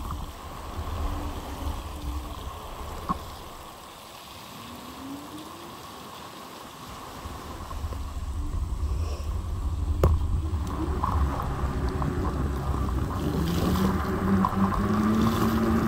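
Wind rumbling on the microphone and tyre noise on wet asphalt during an electric scooter ride, easing for a few seconds about four seconds in and building again in the second half.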